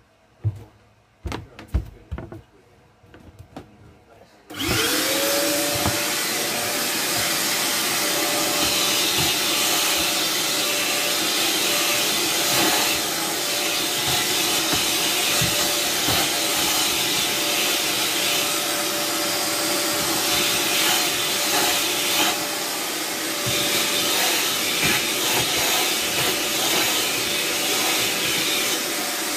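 Handheld vacuum cleaner: a few knocks and clicks as it is handled, then its motor switches on about four seconds in with a quick rising whine and runs steadily.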